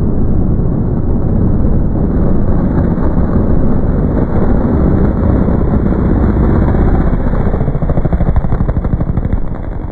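Motorcycle engine running loudly at high revs, its rapid firing pulses coming through as a dense, steady rasp.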